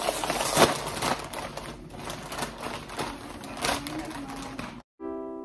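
Crinkling and rustling of a Flamin' Hot Ruffles potato chip bag as a hand reaches in and digs out chips, full of crackly clicks. Near the end it cuts off suddenly and piano music begins.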